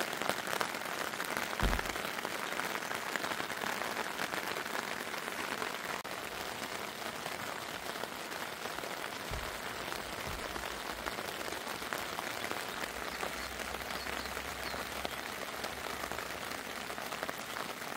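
Heavy rain pouring onto and off a tent's flysheet: a steady, dense patter of drops, with a low thump about two seconds in.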